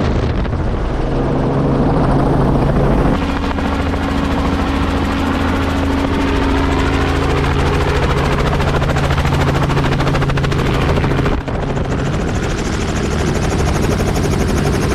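Light two-blade helicopter running: a loud, steady engine and rotor drone as it flies in and sets down with the rotor still turning. The sound changes abruptly twice, about 3 and 11 seconds in.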